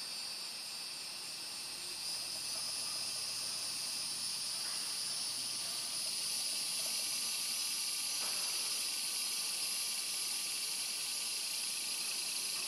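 Steady chorus of insects, several high-pitched buzzing trills held at once, growing a little louder about two seconds in and again about six seconds in.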